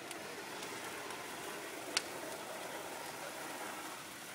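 Water from a garden hose hissing steadily as it sprays onto a burning wooden booth, with one sharp pop about two seconds in.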